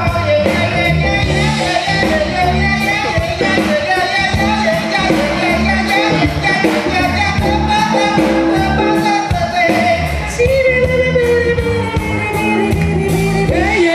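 Live band playing an upbeat jazz-soul number: singers' voices over drums, guitar and keyboard, with the cymbals keeping a steady beat.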